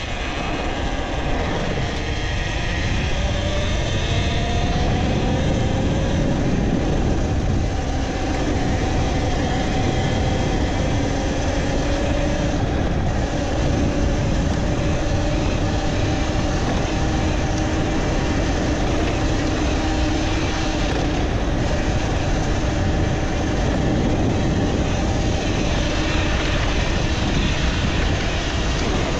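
Talaria Sting R electric dirt bike under way, its electric motor whining as a thin tone that climbs in pitch over the first few seconds and then holds fairly steady. A heavy, steady rumble of wind and road noise lies under it.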